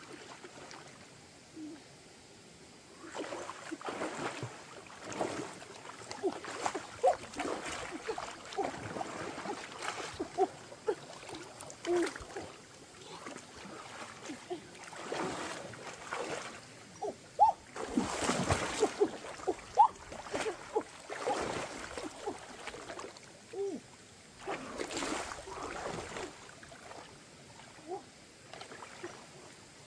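Water splashing and sloshing in irregular bursts, with short plops and trickles. The loudest splashes come a little past halfway.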